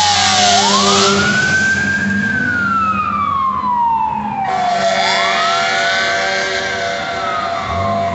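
Fire engine siren wailing. Each cycle rises quickly, holds briefly, then slides slowly down, about two cycles here, over the low hum of traffic. It grows a little fainter as the truck drives away.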